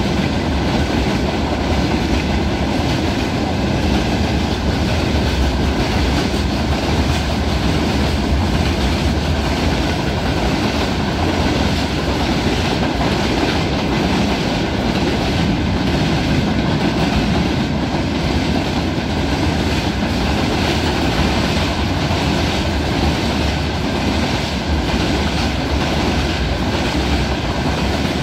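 Freight train of covered hopper wagons and tank wagons rolling past at speed. Its steel wheels make a steady rolling noise on the rails.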